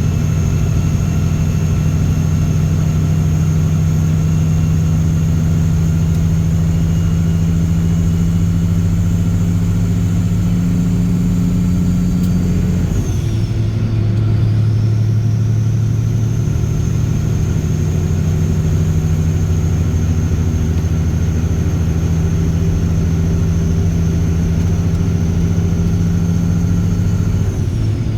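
Straight-piped Caterpillar C15 ACERT diesel pulling a truck under steady load, with a high whine over the engine. About halfway through, the engine note drops and the whine dips as the 18-speed is shifted, then it pulls on, and a second shift comes near the end.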